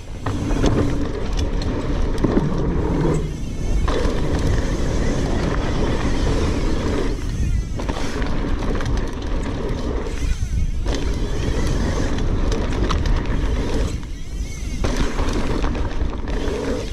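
Mountain bike rolling fast down dirt jumps: wind buffeting the camera microphone and knobby tyres rumbling over packed dirt, with four brief dips in the noise as the bike leaves the ground over jumps.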